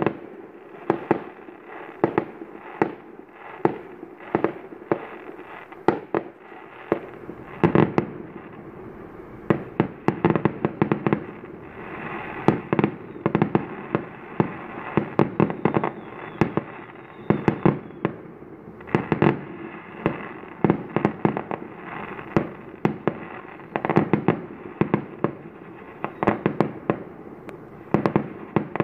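Fireworks going off: a dense, continuous barrage of sharp bangs, several a second, with crackling between them.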